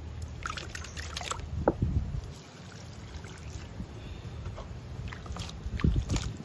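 Water sloshing and being poured out of a plastic tub, with splashing and two dull knocks of the plastic tub being handled, about two seconds in and near the end.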